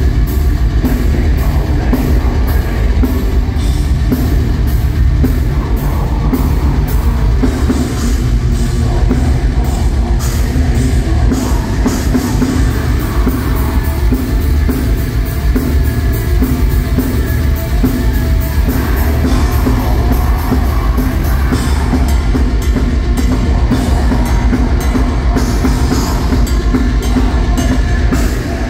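Heavy metal band playing live, loud: distorted electric guitars and bass over fast, driving drums with rapid, even kick-drum and cymbal hits and a heavy low end.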